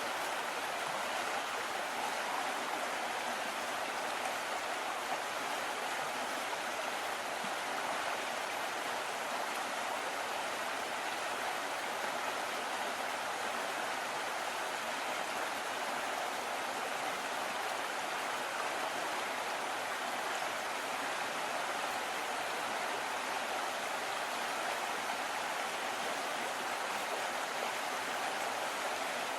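River water flowing and rushing over rocks, a steady, unbroken wash of sound.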